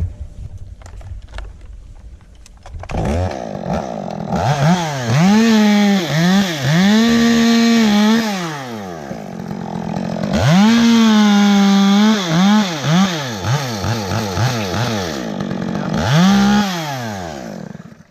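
Two-stroke chainsaw starting up about three seconds in, then revved up and down repeatedly, held at high revs in two long stretches as if cutting, and dying away just at the end.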